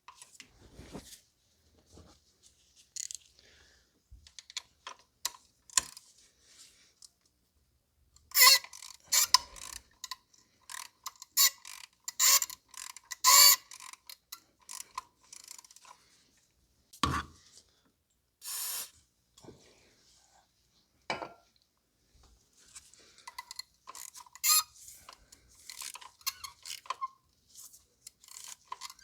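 Ratchet and spark plug socket backing a spark plug out of a BMW N55 inline-six cylinder head: ratchet clicks and knocks, with repeated squeaks from the plug threads as they turn. The squeaking is a sign of dry threads, perhaps a little rust, with no anti-seize on them.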